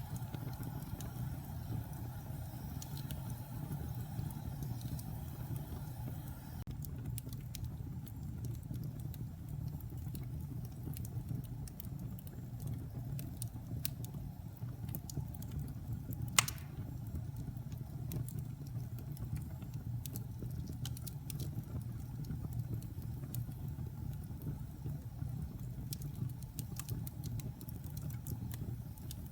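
Wood logs burning in a fireplace: a steady low rumble of the flames with scattered small crackles throughout and one sharp, loud pop about halfway through.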